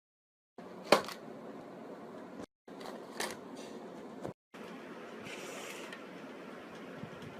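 Faint room noise with a few sharp clicks or knocks, the loudest about a second in and another about three seconds in, in three short edited pieces that cut off abruptly.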